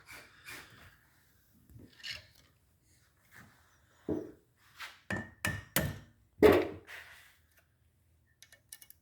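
Sharp knocks and metallic taps of a Subaru cylinder head and shop tools being worked on a bench as the head is turned over and the exhaust valve springs are taken apart. The taps bunch together in the middle, one of them briefly ringing, with a few light clicks near the end.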